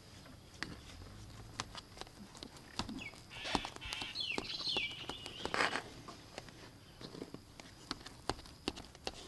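Light, irregular clicks of a knife blade knocking against a metal baking tray as it scores a slab of sticky coconut rice cake. About halfway through, a few short falling chirps sound.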